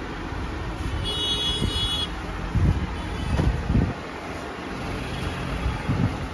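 Steady rumble of road traffic and market bustle, with a high-pitched tone sounding for about a second near the start and a few low thumps in the middle.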